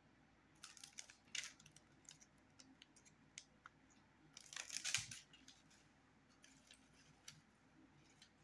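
Faint handling of a surprise toy's small plastic pieces and packaging: scattered light clicks and rustles, with a louder crinkling rustle about halfway through.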